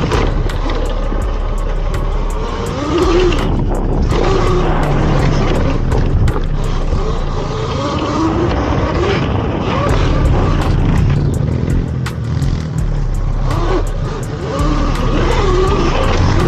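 Dirt bike engines revving up and down as bikes ride a motocross track, pitch rising and falling with the throttle.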